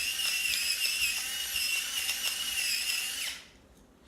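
Battery-powered electric pepper mill grinding black pepper: a steady high-pitched motor whine over a gritty hiss, which stops about three seconds in.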